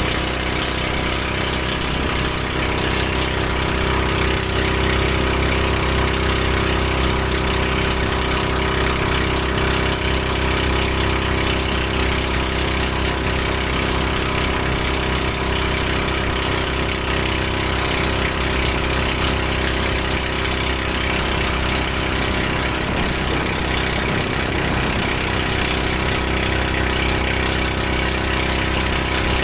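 Motor bangka (outrigger boat) engine running steadily at one constant speed.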